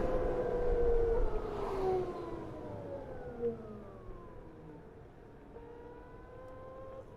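BMW CE 04 electric scooter's motor whine falling in pitch as it slows, with wind and road noise fading away. Near the end the whine holds steadier and rises slightly.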